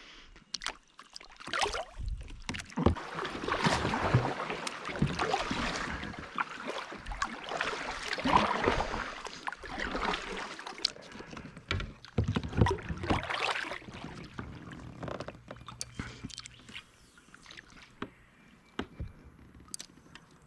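Kayak on the water: paddle splashing and water sloshing around the hull in irregular bursts, with scattered knocks, busiest in the first two thirds and dying down near the end.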